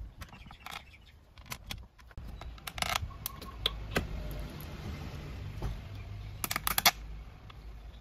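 Small metal clicks and clinks from bolts and a 1/4-inch drive socket and extension being handled at a scooter's CVT cover, with a quick run of ratchet clicks about six and a half seconds in.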